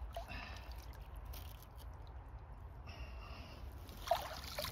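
Landing net being moved through shallow river water, with soft swishes and splashes over a low wind rumble on the microphone, and a louder short burst near the end.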